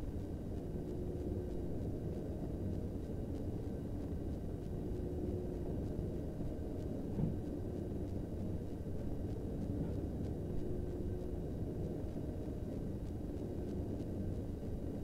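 Steady low rumble with a faint hum and no distinct sounds: the background noise of an old film soundtrack between narration lines.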